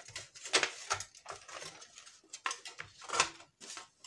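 Hands working a quartz room heater's sheet-metal reflector plate, pushing a small metal stopper clip onto the heating rod's end: several short metallic clicks and scrapes.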